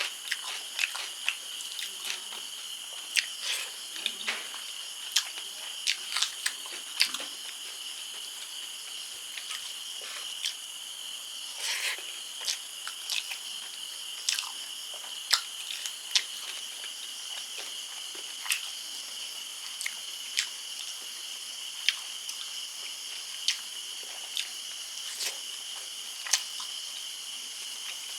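Close-up eating of fish curry: scattered wet chewing, lip smacks and mouth clicks, sometimes in quick runs of several, over a steady high-pitched chirring of insects, typical of crickets.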